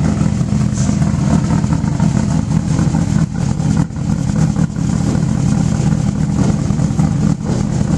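Holden HDT Commodore Group C race car's V8 engine running at low revs with a deep, uneven rumble as the car creeps forward.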